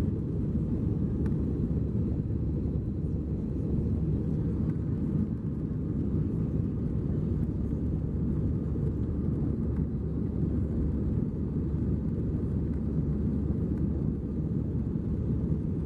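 Cabin noise inside an Airbus A320-214 in flight: a steady low rumble from its CFM56-5B turbofan engines and the airflow over the fuselage, heard from a window seat behind the wing.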